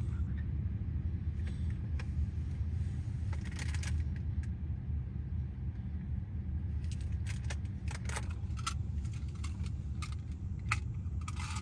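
Road and engine noise inside a moving car's cabin: a steady low rumble, with scattered light clicks and rattles.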